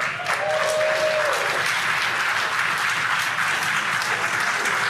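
Crowd cheering and applauding, with a held whoop about half a second in, celebrating confirmation of Falcon 9's stage separation.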